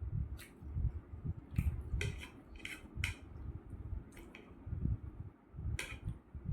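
Close-miked eating: soft, repeated chewing sounds, with a fork or spoon clicking sharply against a plate about eight times, the loudest click near the end.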